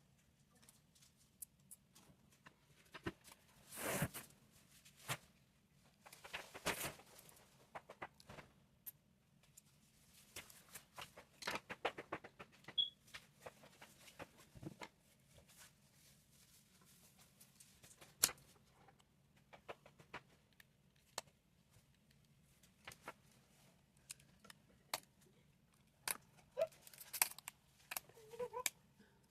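Faint, scattered light clicks and taps from small repair tools and phone parts being handled, with two short scrapes about four and seven seconds in, over a steady low hum.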